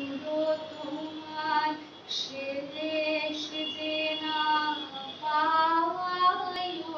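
A woman singing a melody with long held notes.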